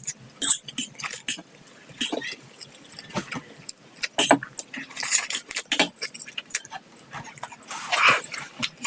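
Close-up eating sounds of pancit canton noodles and eggs: irregular wet chewing, lip smacks and clicks, with one longer slurp near the end.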